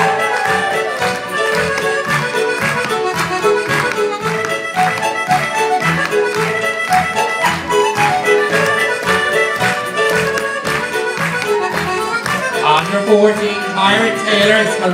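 Accordion playing a lively Irish dance tune with a steady beat. Audience shouts and cheers come in near the end.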